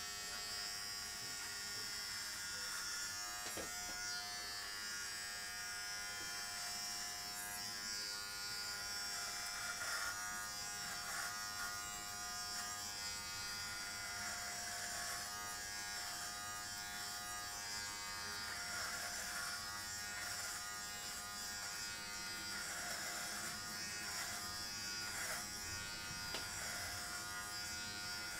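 Philips Norelco Multigroom 7000 cordless trimmer buzzing steadily as it is run over the scalp, clipping short hair.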